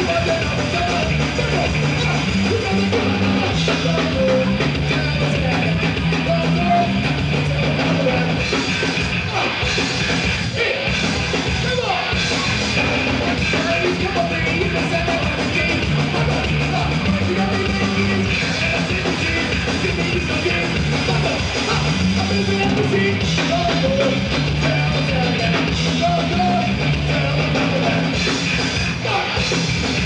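Garage punk rock band playing live on stage: electric guitars, bass guitar and drum kit, loud and continuous, with a stepping bass line.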